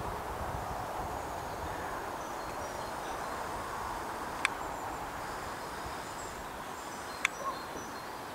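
Outdoor background ambience: a steady hiss with faint, high, short chirps, broken by two sharp clicks, one about halfway through and one near the end.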